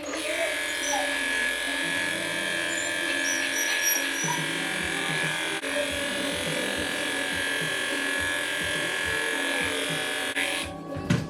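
Electric lift motor of a grooming table running steadily as it raises the table, with a constant whine, then stopping abruptly about ten seconds in. Background music plays underneath.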